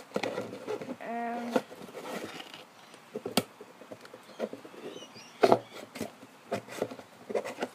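Scissors snipping through a plastic ice cream box, with handling of the box: scattered sharp snips and clicks, the loudest two a couple of seconds apart.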